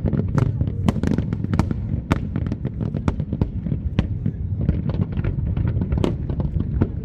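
Large fireworks display: a rapid, unbroken volley of sharp bangs and crackles over a steady low rumble of distant bursts.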